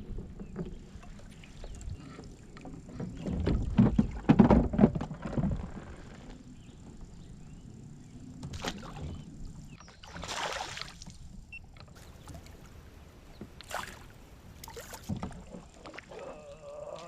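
Knocking and bumping on a kayak's hull as an angler shifts and handles gear, heaviest about four to five seconds in, with a short rushing noise near the middle and a few sharp clicks later.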